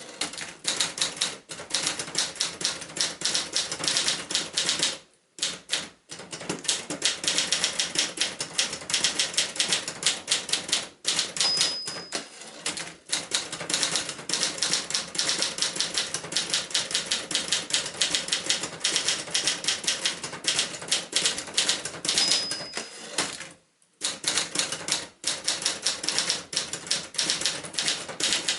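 1972 Adler J5 portable typewriter being typed on steadily: a fast, dense run of key strikes with a few short pauses. Twice, at about 11 and 22 seconds in, a short high ping sounds, the margin bell warning of the line's end.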